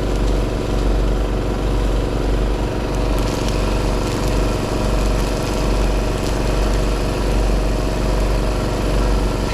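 An engine running steadily at an even speed, with a few faint clicks.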